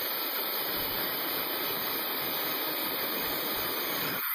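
Electric drill running as a twist bit bores a hole through a wooden axe handle: a steady noise that cuts off about four seconds in.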